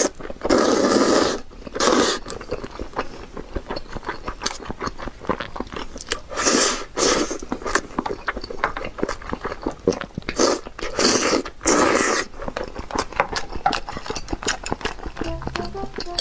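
Loud, long slurps of sticky sauce-coated instant noodles: the biggest about a second in, around two seconds, and two in the middle. Between them comes close-up wet chewing with fine lip-smacking clicks.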